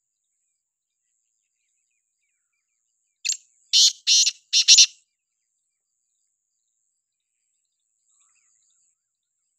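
Black francolin calling once, about three seconds in: a quick series of five loud, high notes over about a second and a half.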